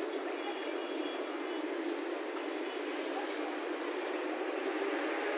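Steady street traffic noise: an even rush of passing vehicles with no single loud event.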